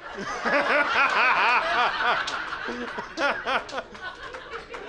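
Comedy club audience laughing, loudest in the first two seconds, then dying down, with another short burst of laughter a little past three seconds.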